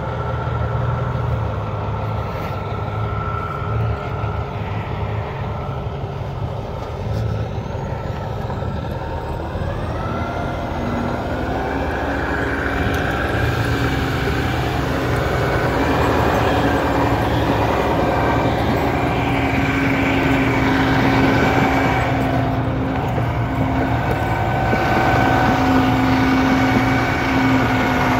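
Peterbilt 389 semi's Cummins diesel engine running at low revs, then rising in pitch about ten seconds in and holding at higher revs under load as it tows a pickup out of a snowy ditch.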